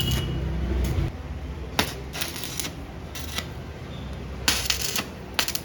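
A low rumble fades out about a second in. Then come irregular sharp metallic clicks and clinks, several spread out and a quick cluster near the end.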